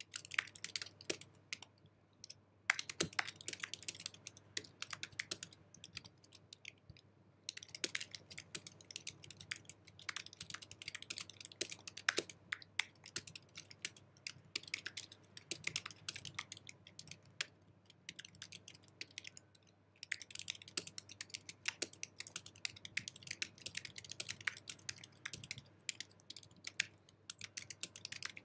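Typing on an Apple keyboard: a dense, quick run of key clicks, broken by short pauses about two, seven and eighteen seconds in.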